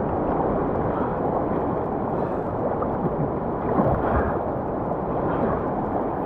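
Whitewater rushing and splashing right around a kayak at water level, a steady wash of water noise with a few louder splashes about two and four seconds in.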